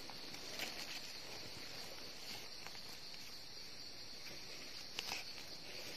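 Steady high-pitched drone of forest insects, with a few faint clicks and rustles of hands working in dry leaf litter, the loudest about five seconds in.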